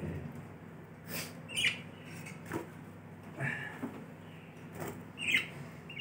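Pet budgerigars giving several short chirps, the loudest near the end, with a few light clicks and knocks in between and a faint steady hum underneath.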